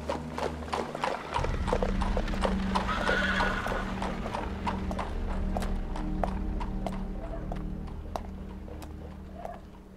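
Horse-drawn carriage moving off: hooves clip-clopping on the street over a low rumble of wheels, with a horse whinnying about three seconds in. The hoofbeats fade as it draws away.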